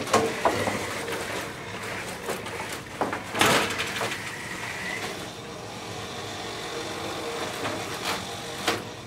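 Small competition robot driving across foam floor tiles, its electric drive motors whining steadily with gear noise. A loud clunk comes about three and a half seconds in.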